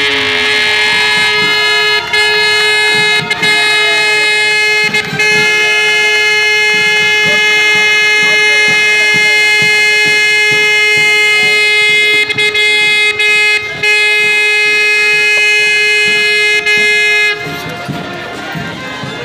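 Air horn sounding the race start: one long, loud, steady blast, broken by a few brief gaps, that cuts off after about seventeen seconds.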